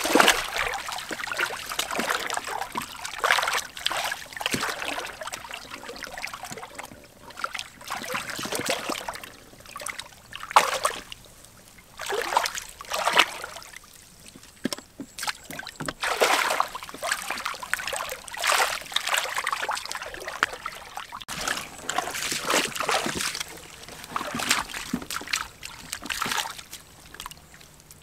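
Shallow muddy water splashing and sloshing in irregular bursts as a person wades barefoot through it and plunges their hands in.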